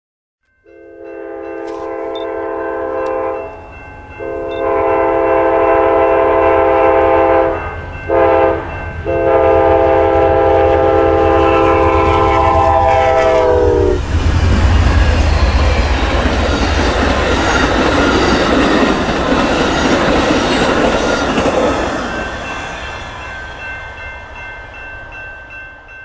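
Amtrak Southwest Chief passenger train passing behind GE Genesis diesel locomotives. The lead locomotive's chime air horn sounds the grade-crossing signal of long, long, short, long, and its pitch drops on the last blast as it goes by about halfway through. Then comes the rumble of the diesels and the wheel noise of the passing cars, fading near the end.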